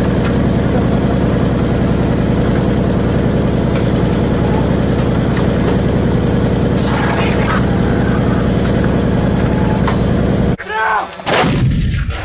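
A heavy engine runs steadily and loudly. Near the end it breaks off, a short shout is heard, and one artillery gun fires with a single loud blast that dies away.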